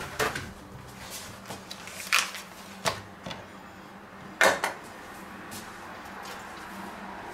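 Things being handled on a wooden cutting board: a sheet of paper towel laid down, a vacuum-sealed steak pack moved onto it and a torch lighter set down. There are four short knocks and rustles, the loudest about four and a half seconds in.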